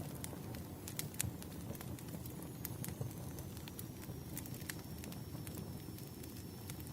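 Burning firewood crackling, with irregular sharp pops and snaps over a steady low rumble.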